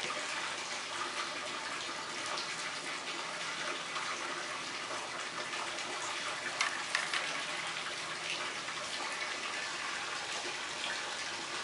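Steady rushing water, with a few light taps and crinkles about halfway through.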